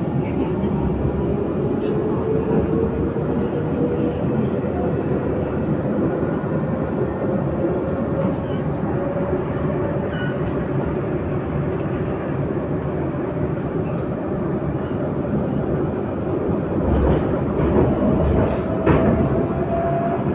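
Inside a moving passenger train: steady rumble and rail noise, with a thin whine that slowly rises in pitch throughout. A few faint clicks, and a heavier rumble about three quarters of the way through.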